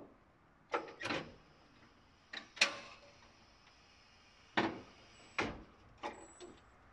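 Ricon K-series hydraulic wheelchair lift platform unfolding, giving a series of sharp metal clunks and knocks, about eight, spaced unevenly, some in close pairs.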